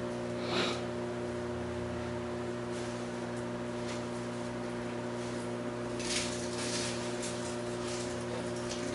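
Steady electrical hum with several fixed tones, with a few faint knocks and rustles of handling on a worktable, one early and a cluster about six seconds in.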